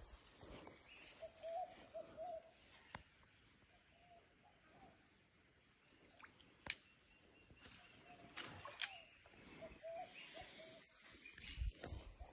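Faint outdoor ambience with a bird calling in two runs of short, low, wavering notes, a few notes each. Two sharp clicks stand out as the loudest sounds.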